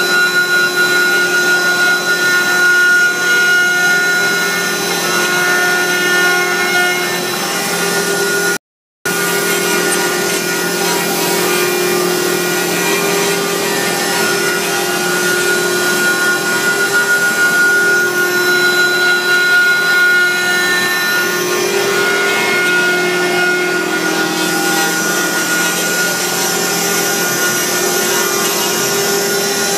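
Multi-head CNC router carving wood: the spindles run with a steady whine while the tapered carving bits rasp through the wood continuously. The sound cuts out for a moment about nine seconds in.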